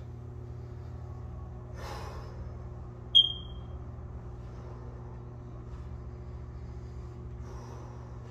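A man's hard exhale while he recovers between push-up sets, over a steady low hum in the room. About three seconds in there is a single short, high-pitched chirp.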